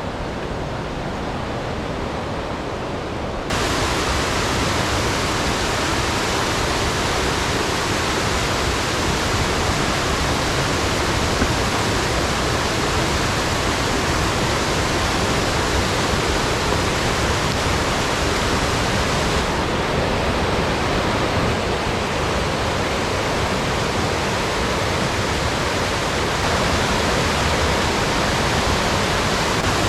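Steady rush of water from Oneonta Creek and its falls, stepping up louder and brighter about three and a half seconds in.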